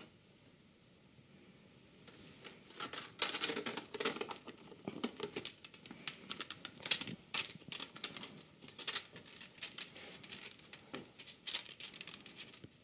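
A steel bandsaw blade being twisted and folded into a coil by hand and foot: rapid, irregular metallic clicks and rattles, starting about two seconds in.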